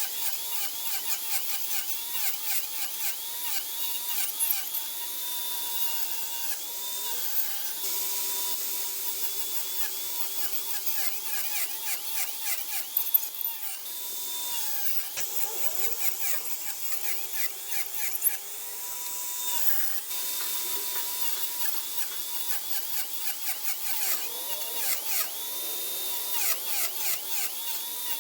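Small power tool's electric motor whining as it cuts wood, its pitch dipping and recovering over and over as the cuts load it. There are a few sharp knocks along the way.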